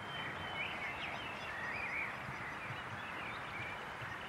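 Outdoor background ambience with small birds chirping briefly at intervals over a steady hiss, and a thin steady high tone behind it.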